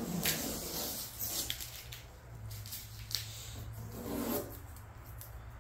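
A hand rubbing and scraping along painter's tape on a car's sheet-metal hood, in several short scratchy bursts.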